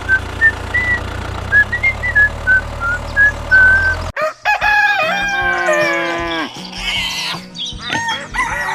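Background music with a high melody over a steady low beat, cut off sharply about four seconds in. It is followed by a rooster crowing and several more chicken calls that fall in pitch.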